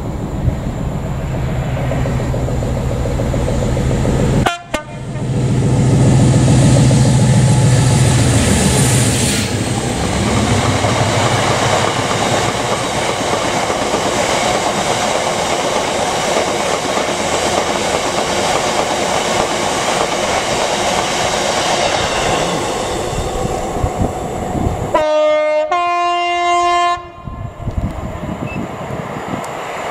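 Class 56 diesel locomotive 56091 passes under power, its engine loud and falling in pitch as it goes by. A long rake of box wagons then rumbles and clatters past. Near the end, a Class 66 diesel locomotive sounds its two-tone horn, a lower note and then a higher one.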